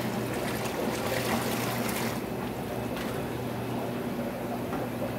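Water from a fish shipping bag poured through a mesh aquarium net into a bucket, splashing and trickling for the first couple of seconds. Under it runs the steady low hum of aquarium air pumps and filters.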